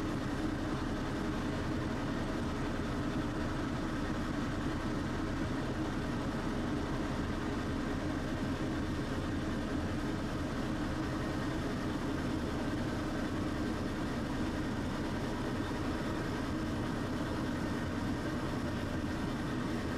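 Steady low hum and rumble of a Tosaden streetcar, heard from inside the car, even throughout with no squeals or clicks.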